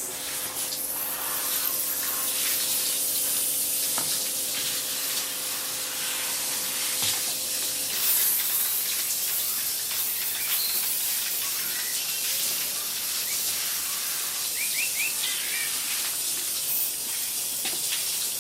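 Steady hiss of spraying water, with a faint low hum that stops about eight seconds in. A few bird chirps come through near the end.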